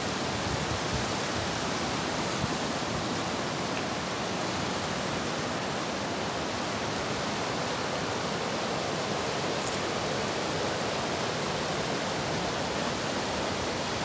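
Fast, swollen river in spate rushing over rocky rapids: a steady, unbroken rush of water.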